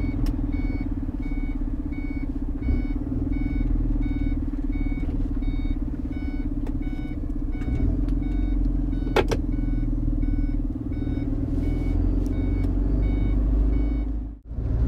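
Iveco Eurocargo truck's diesel engine running steadily under way, heard in the cab as a low drone. Over it the turn indicator ticks as short electronic beeps about one and a half times a second, with a couple of single knocks. The sound cuts out briefly near the end.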